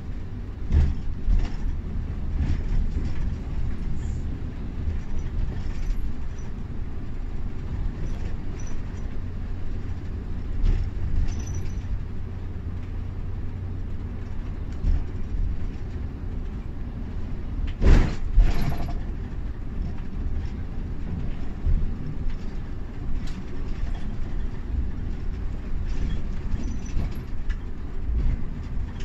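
Cabin sound of an intercity coach driving on a wet road: a steady low rumble of engine and tyres, with scattered knocks and rattles, the loudest one about 18 seconds in.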